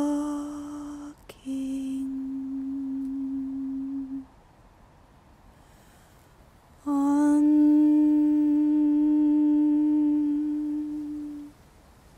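A woman's unaccompanied voice holding long sung notes on nearly the same pitch. One note fades out about a second in and a softer one runs to about four seconds. After a pause of nearly three seconds, a long note is held from about seven seconds to eleven and a half.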